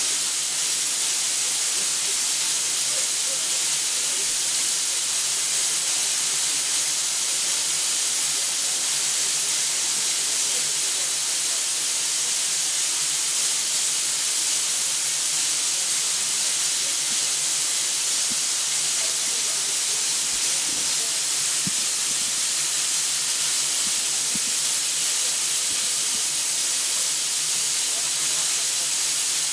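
Steam escaping with a steady, continuous hiss from a narrow-gauge steam locomotive standing with its train.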